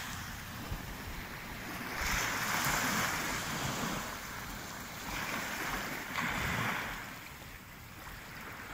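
Small waves washing up onto a sandy beach and drawing back, the surf swelling and easing about three times.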